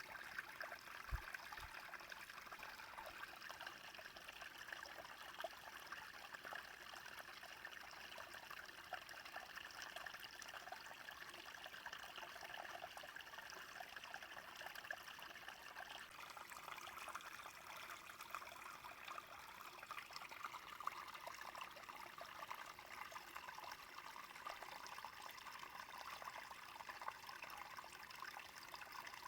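A small stream flowing over stones, a steady trickling and babbling of running water with a slight change in its texture about halfway through.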